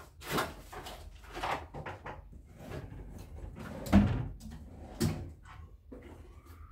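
TV-stand drawers and cabinet doors being opened, rummaged through and shut: a series of knocks and rattles, with a sharp thump about four seconds in and another about a second later.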